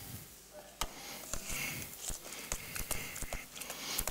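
Spoon and plastic container scraping and tapping in a stainless steel mixing bowl as wet diced vegetables are scraped in and stirred: faint irregular clicks and clinks, one sharper tap about a second in.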